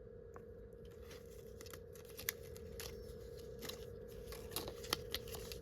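Faint handling noises of a craft die set and its packaging: scattered light clicks and rustles, two sharper clicks about two seconds in and near the end, over a faint steady hum.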